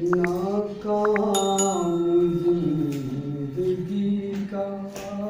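A man's voice reciting a ghazal in a sung, chant-like melody, drawing out long notes that glide slowly up and down. It starts suddenly.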